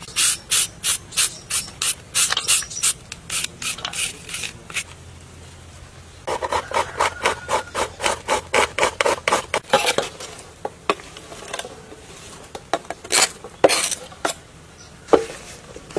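Vegetables rasped on a flat metal grater in quick, rhythmic back-and-forth strokes, then a knife chopping on a board in sparser strokes towards the end.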